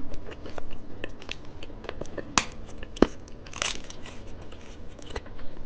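A plastic candy wrapper being crinkled and torn open, with scattered sharp clicks and crackles.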